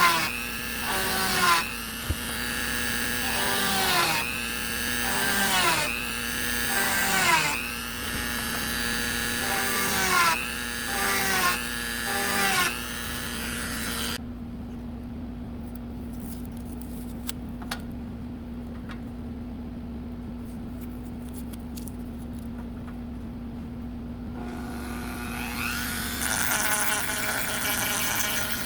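Dremel rotary tool running steadily while sanding wood. For the first half its pitch dips in repeated strokes, about one every second and a half, as the bit is pressed to the wood. It then runs without load for about ten seconds with a few light clicks, and sanding resumes near the end.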